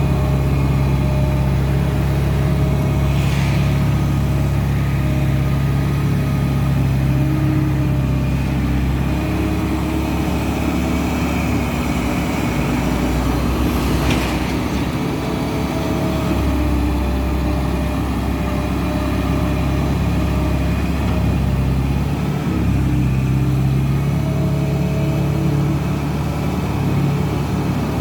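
Diesel engine of a working loader running steadily, its pitch and load shifting through the middle as the machine works. Two short, sharp noises stand out, one a few seconds in and one about halfway.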